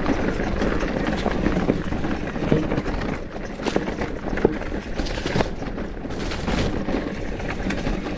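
Mountain bike rolling over a stony trail: tyres crunching over rock and the bike rattling with many small irregular knocks, over a steady low rush of wind on the microphone.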